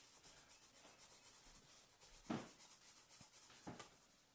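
Marker tip scratching across paper in rapid, light hatching strokes, faint. A soft knock about two seconds in is the loudest moment.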